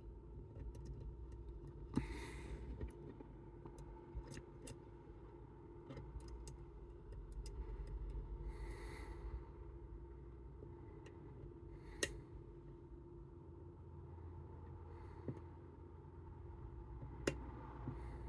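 Scattered small sharp clicks, with two soft scraping swishes, over a low steady hum: metal tools working inside a Chubb Detector lever lock.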